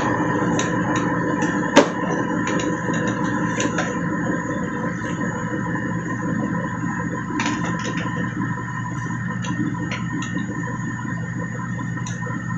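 Steady ambient background music of held synth-like tones, with small plastic clicks and taps as gloved hands pull the waste-ink maintenance box out of an Epson L360 printer. One sharper click comes about two seconds in.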